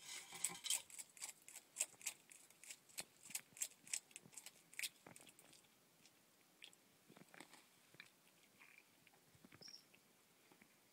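Bearded dragon chewing a cockroach: faint, crisp crunching of the insect's shell, a quick run of crunches over the first five seconds, then only scattered ones.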